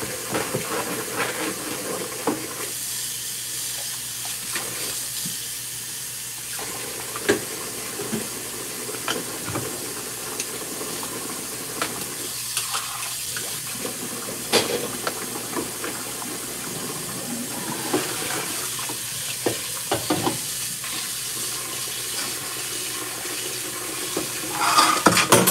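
Dishes being washed by hand in a stainless steel sink of soapy water: water splashing, with scattered clinks and knocks of dishware and utensils against the sink, and a louder clatter near the end.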